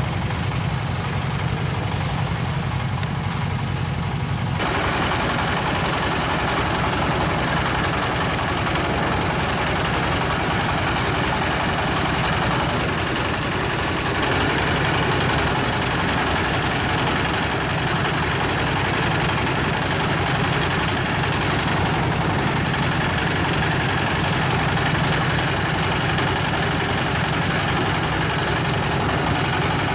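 A small engine running steadily with a fast pulsing hum. About four and a half seconds in, a louder, rushing mechanical noise joins it and carries on.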